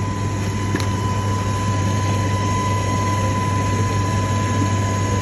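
Steady mechanical hum with a fan-like rush and a thin constant high tone, with a faint click about a second in.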